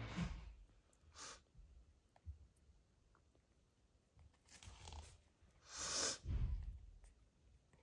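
Mother cat licking and nuzzling her newborn kittens: a handful of short, soft rasping, wet noises, the loudest two about five and six seconds in.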